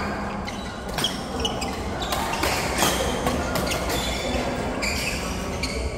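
Court sounds of a doubles match: a run of sharp hits and thuds at irregular intervals over a steady background of hall noise.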